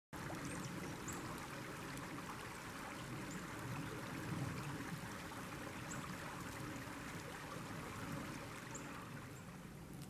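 Woodland creek flowing steadily, a continuous rush of running water, with a few short, faint high bird calls scattered through it.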